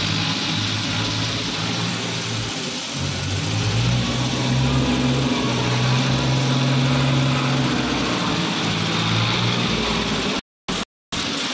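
Farm tractor's diesel engine running as it pushes grain with a front blade. The engine speed rises a few seconds in, then holds steady. The sound cuts out briefly twice near the end.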